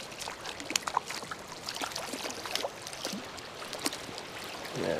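Shallow stream water running and lapping, with many small, irregular splashes and ticks at the surface.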